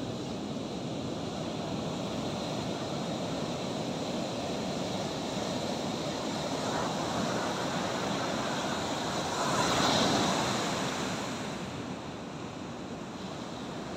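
Ocean surf breaking on a sandy beach: a steady rushing wash of waves, with one wave breaking louder about ten seconds in.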